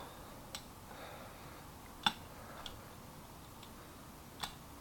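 A few light, scattered metallic clicks from a lever padlock and its key being handled, about five in all, the loudest about two seconds in.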